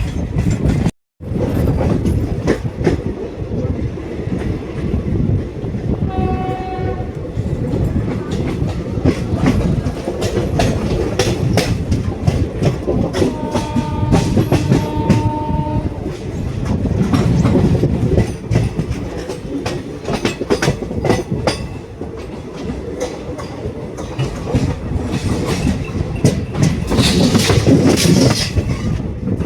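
Passenger express train running along the track, its wheels clattering steadily over the rail joints. A train horn sounds briefly about six seconds in, then again as two longer blasts a few seconds later.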